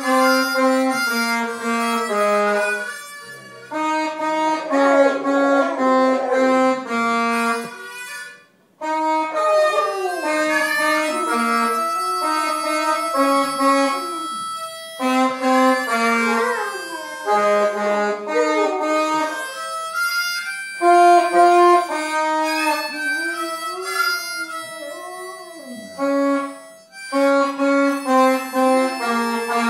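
Harmonica played in short phrases of held notes, with a dog howling along in wavering pitches that slide up and down between the notes. The harmonica playing stops briefly a couple of times.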